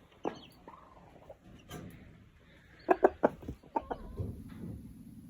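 Chickens clucking in short, scattered calls, with a few loud ones in quick succession about three seconds in. A low steady hum takes over near the end.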